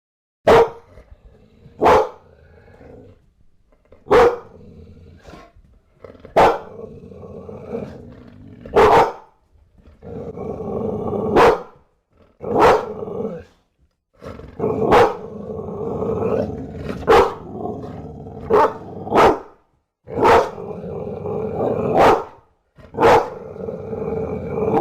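Bulldog growling continuously, broken by about a dozen sharp, loud single barks at irregular intervals a second or two apart, with a few short silent pauses.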